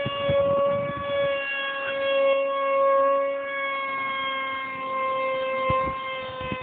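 Electric motor and propeller of an RC Powers F117 v2 foam jet running at high throttle in flight: a steady high-pitched whine that sags slightly in pitch, with wind buffeting the microphone in low thumps.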